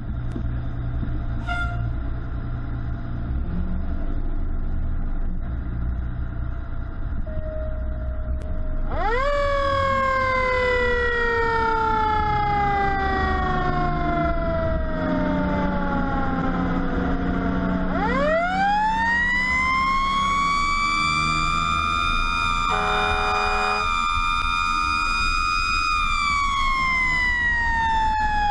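Fire truck siren winding up sharply about nine seconds in and slowly falling, then winding up again, holding high and falling away near the end, over the rumble of the truck's diesel engine. A short horn blast sounds near the middle of the second wind-up.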